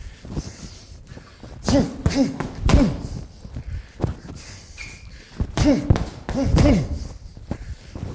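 Boxing-gloved punches landing on a TKO heavy punching bag in two quick flurries of three or four thuds, about two and six seconds in. Each blow comes with a short sharp exhale from the boxer.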